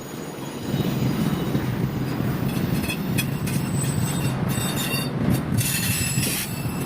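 Train rolling past with a steady low rumble, with high-pitched steel wheel squeal on the rails coming and going in the second half.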